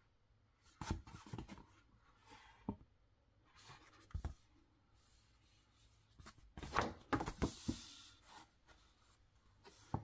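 Paper instruction manual rustling as its pages are handled and folded open, in irregular bursts with a few soft knocks, the longest rustle about two-thirds of the way through.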